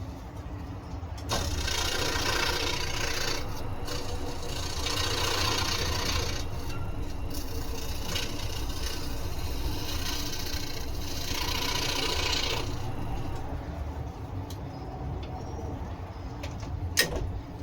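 Scroll saw running, its blade rasping through wood from a second or so in until about two-thirds through, then running on more quietly without the cut. A single sharp click comes near the end.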